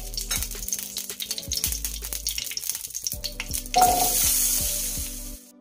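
Hot oil crackling and spitting in a nonstick frying pan, then, about four seconds in, diced raw potatoes tipped into the oil, setting off a loud sizzle that eases off and cuts off suddenly.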